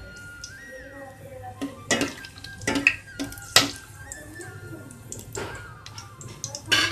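Plastic spoon knocking and scraping against a stainless steel pot while whole spices are stirred in oil, with half a dozen sharp knocks spread irregularly. Soft background music plays underneath.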